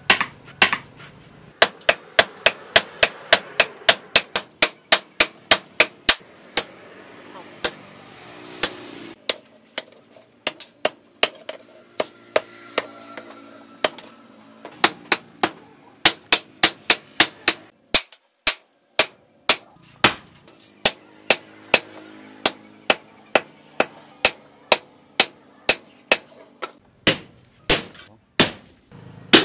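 Hand hammer striking a red-hot steel blade on an anvil: a fast run of sharp metallic blows, two or three a second, broken by a few short pauses.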